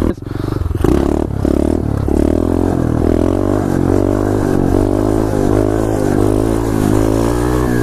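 2015 SSR 125cc pit bike's single-cylinder four-stroke engine under hard throttle during a wheelie. It dips right at the start, revs up hard about a second in, then holds fairly steady high revs that rise and fall slightly.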